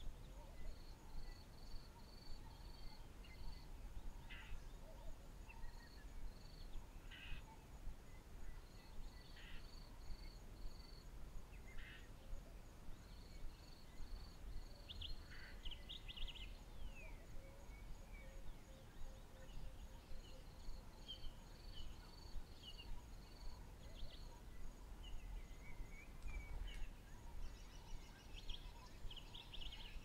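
Bush birds calling: one bird repeats runs of several short, high piping notes every few seconds, with scattered brief calls from other birds. Under them runs a faint steady high hum and a low rumble.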